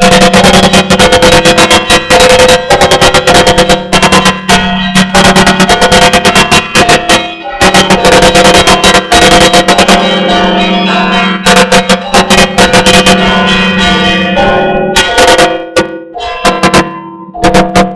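Orthodox church bells ringing a fast peal: small bells struck in quick succession over the steady hum of larger bells. Near the end the strikes thin out and stop, and the bells ring on.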